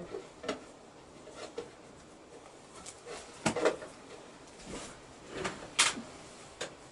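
Scattered light clicks, knocks and rustles of things being handled, the loudest about three and a half and six seconds in.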